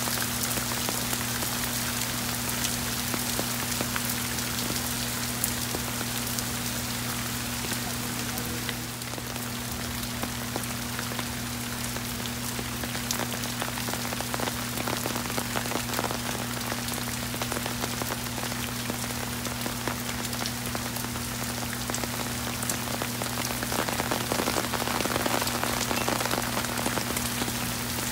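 Heavy downpour of rain pouring onto pavement and a parking lot: a dense, steady hiss of drops with individual drop ticks close by, over a steady low hum.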